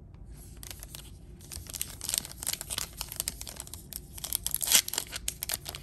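Foil wrapper of a Panini Court Kings basketball card pack being torn open by hand: quick crinkling and crackling, busier in the second half, with one louder crackle near the end.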